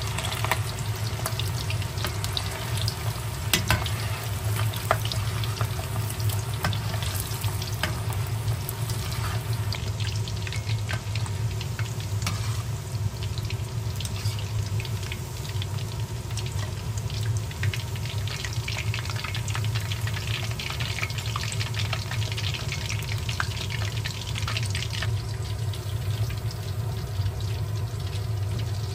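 Food sizzling and crackling in a hot pan, with a steady low hum underneath.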